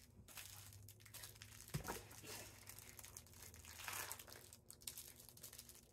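Quiet crinkling and rustling of packaging being handled, with brief louder rustles about two seconds and four seconds in.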